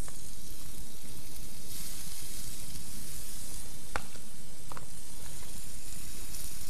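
Chopped garlic sizzling on a hot iron teppanyaki griddle plate: a steady frying hiss that starts abruptly, with two light clicks about four and nearly five seconds in.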